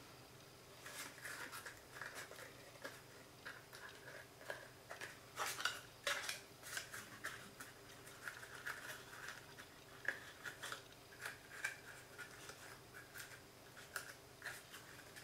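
Cardstock being handled and folded by hand: faint, irregular crinkles, rustles and small taps as the petal flaps of a paper box are pressed and closed, a little louder about five to six seconds in.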